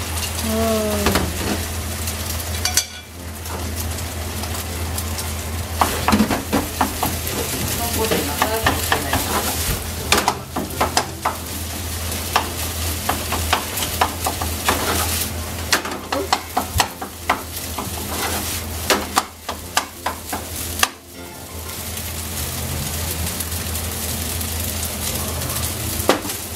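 Rice and egg frying in a nonstick frying pan over a gas flame, sizzling steadily as a wooden spatula stirs and scrapes through them, with many sharp taps of the spatula against the pan.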